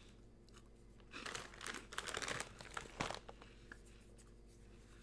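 Snack bag crinkling and rustling as it is handled, for about two seconds starting about a second in, ending with a sharp click.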